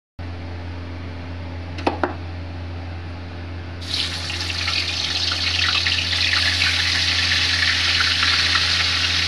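Marinated chicken pieces going into hot oil in a kadhai, setting off a frying sizzle that starts suddenly about four seconds in and grows louder as more pieces go in. Before it, a steady low hum and two short clicks about two seconds in.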